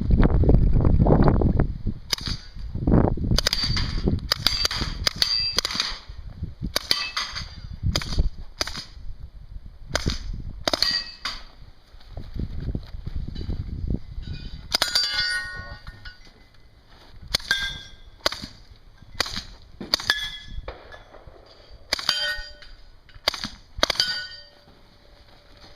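Mini Uzi submachine gun firing in short strings of shots, with steel targets ringing as the hits land.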